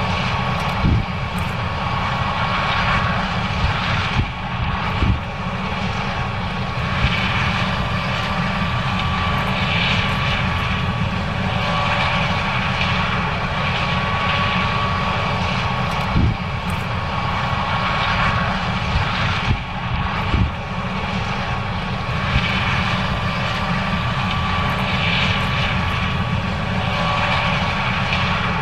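John Deere 9610 combine's diesel engine and machinery running steadily under load while harvesting corn: a low, even drone with a steady high whine over it and a few brief knocks.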